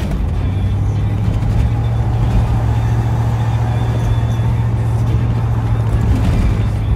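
Steady low drone of a car driving on the road, heard from inside the cabin.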